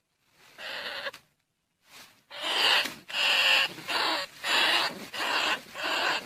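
Recorded decoy call of squealing rats, used to lure field rats and bandicoot rats: harsh, shrill squeals repeated about one and a half times a second, starting after a moment of silence and a short first pause.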